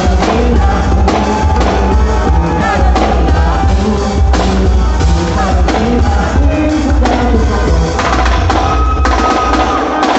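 Loud amplified quadrilha dance music with a steady drum beat, heavy bass and singing.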